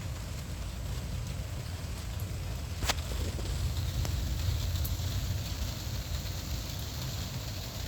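Steady rain falling during a thunderstorm, with wind rumbling on the microphone. There is one sharp click about three seconds in.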